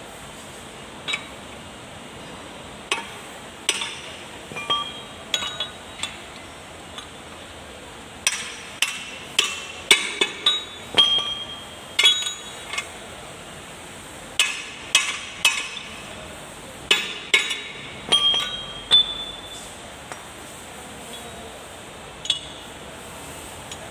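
Irregular metal clinks and knocks, some ringing briefly, as a tool and steel parts are handled against a tractor's rear-axle gear and its cast housing. The knocks come thickest in the middle, the loudest about ten seconds in.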